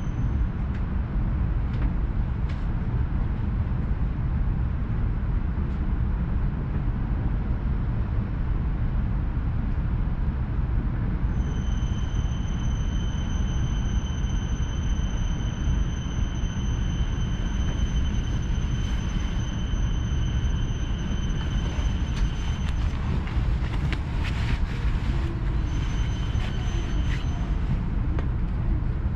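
Steady low rumble of a shinkansen train. A thin high-pitched steady tone sounds over it from about a third of the way in until near three quarters, breaks off, and comes back briefly near the end, with a few light clicks in between.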